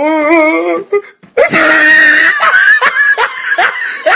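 Voice sound effect from a meme clip: a wavering wail, then a loud scream about a second and a half in, followed by a string of short rising laughs.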